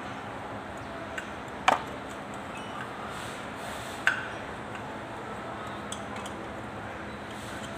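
Two sharp clinks of hard objects about two and a half seconds apart, the first with a short ringing tail, over a steady background hiss.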